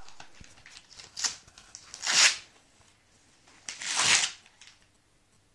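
Wrapping paper being torn off a gift-wrapped book by a toddler's hands, in a few short rips about one and two seconds in and a longer, louder one about four seconds in.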